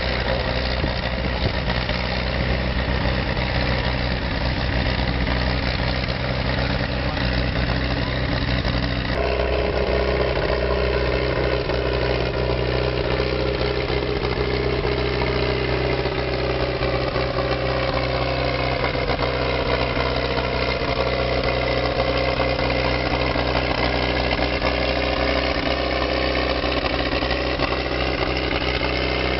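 Heavy machine's engine running steadily. About nine seconds in the sound changes abruptly, and after that higher whining tones slowly rise and fall over the engine.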